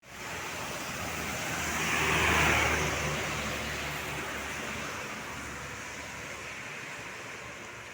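A vehicle passes on a wet road: tyre spray hiss swells to a peak about two and a half seconds in and fades slowly, with a low engine drone under it, over a steady hiss of rain.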